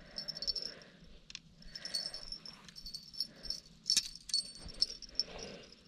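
A dog panting in short, regular breaths, with light rapid clicking over it.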